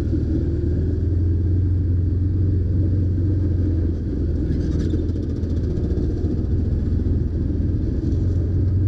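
Can-Am Commander side-by-side's V-twin engine running steadily as it drives slowly over gravel, heard from the driver's seat as a low, even drone.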